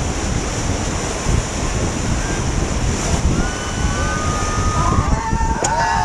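White-water rapids rushing and splashing around an inflatable raft, with wind buffeting the microphone. In the second half, rafters call out with drawn-out shouts, and a short click comes near the end.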